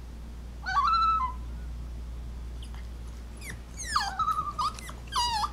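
Alaskan Klee Kai whining and yipping: one drawn-out whine about a second in, then from about three and a half seconds a quick run of whines and yips that drop sharply in pitch.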